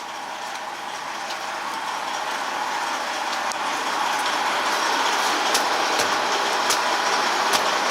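Heavy truck noise growing steadily louder, with a few sharp rattling clicks in the second half.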